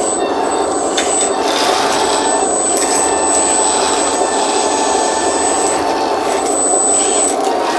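Hydraulic pump of a 1:14-scale RC skid steer loader running steadily, a dense mechanical hum with a thin high whine over it that drops out near the end.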